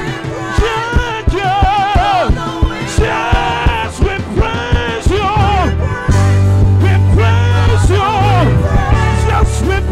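Live gospel praise song: singing with a wavering, ornamented melody over a band with regular drum hits. About six seconds in, a deep sustained bass comes in and the music gets louder.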